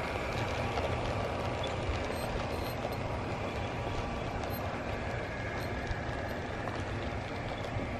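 HO scale model freight train rolling past on the layout track: a steady rumble with faint metallic clicks and a thin ringing from the wheels. Real rain falls throughout.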